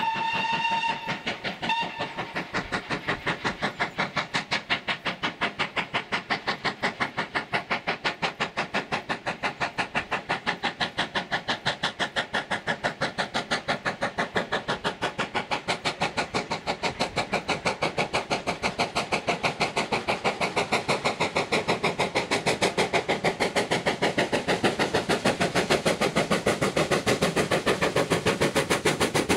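GWR Hall-class 4-6-0 steam locomotive (4936 Kinlet Hall) gives a whistle of about a second, then a short second blast, then works towards and past the listener with a fast, even chuffing of exhaust beats that grows louder as it draws near.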